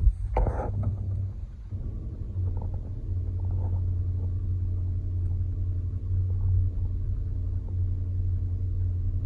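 Land Rover 5.0 V8 cold-starting, heard from inside the cabin: a brief crank and flare about half a second in, then it settles into a steady idle.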